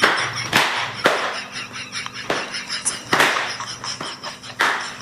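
A series of about five sharp cracks or smacks at irregular intervals, each with a short smear of noise after it.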